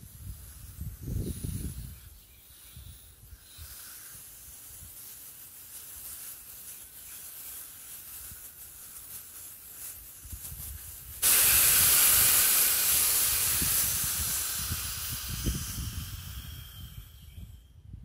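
Aerosol can of Slime tire sealant discharging through its hose into a tire's open valve stem, valve core removed. A faint hiss, then about eleven seconds in a sudden loud hiss of gas rushing out that slowly fades.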